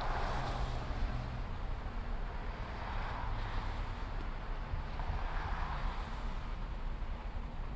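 Steady low rumble under a rushing noise that swells and fades every two to three seconds.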